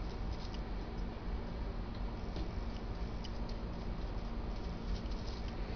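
Foam brush dabbing acrylic paint onto crumpled plastic sheet: faint, scattered light ticks and crackles over a steady hiss and low hum.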